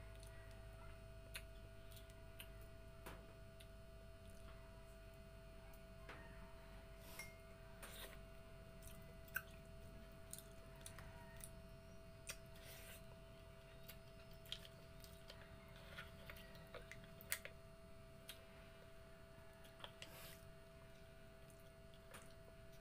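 Quiet eating sounds: chewing and scattered faint clicks as green mussel shells are handled and pried open by hand, a couple of the clicks sharper than the rest. A steady faint two-tone hum runs underneath.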